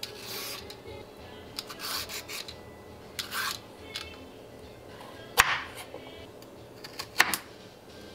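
Y-peeler scraping down raw carrots in several short strokes, then sharp knife strikes through carrot onto a bamboo cutting board in the second half, the loudest about halfway through. Soft background music runs underneath.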